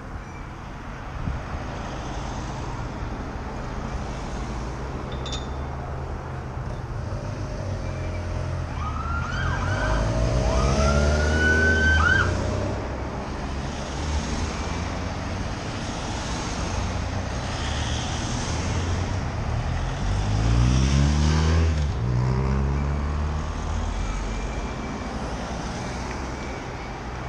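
Race convoy motor vehicles passing close by, one sounding a siren in a short rising wail about ten seconds in; a second vehicle passes loudly about twenty seconds in.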